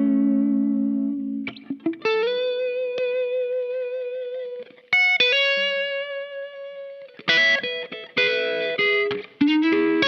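Electric guitar played through a Caline Key West compressor-and-overdrive pedal with a lightly overdriven tone. Low notes ring out and fade, then a long single note is held with vibrato, a second note is held, and a quicker lead run of notes follows near the end.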